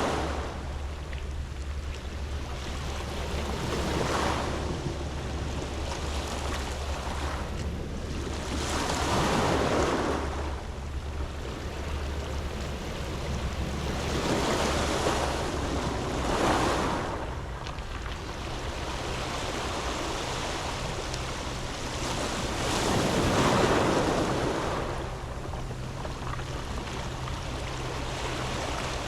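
Sea waves breaking and washing up a round-pebble beach, each wave swelling up and falling back about every four to seven seconds over a steady surf hiss. A low steady rumble runs underneath.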